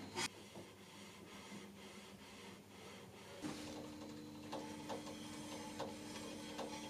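Faint rubbing of rags wiping down a steel straight edge, a few light short strokes, with a steady low hum coming in about halfway.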